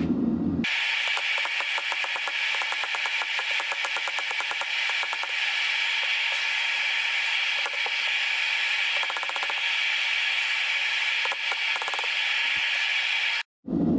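Steel knife stock being ground or abraded: a steady hiss with rapid ticking that starts just under a second in and cuts off abruptly near the end.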